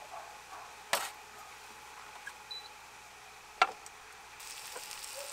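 Metal tongs clacking against a frying pan on a camp stove: two sharp knocks, about a second in and again a little past three and a half seconds, with a few lighter taps between.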